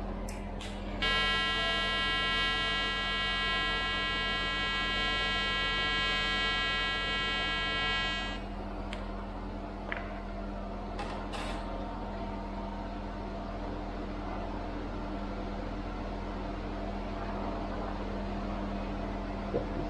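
TIG welding arc on stainless steel burning with a steady high buzz for about seven seconds, starting about a second in and cutting off sharply. A steady low hum runs underneath, with a few short clicks after the arc stops.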